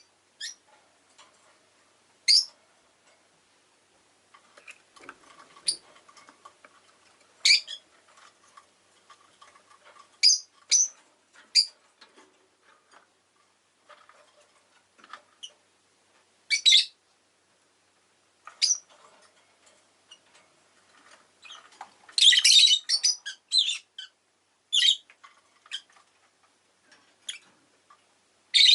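Rosy-faced lovebirds giving short, shrill chirps and squawks at irregular intervals, with a longer run of rapid chattering calls about 22 seconds in.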